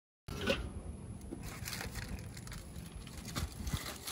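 Aluminium foil crinkling and crackling as it is handled and folded, with a louder crunch about half a second in, after a brief cut to silence at the very start.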